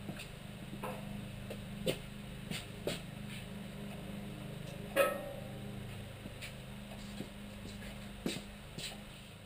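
Scattered clicks and knocks over a steady low hum, with one louder, sharper knock about five seconds in, while a steel trailer frame is handled.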